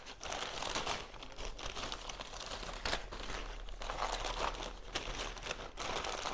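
Plastic packets of latex balloons rustling and crinkling as they are handled and sorted, with irregular bursts of crackle.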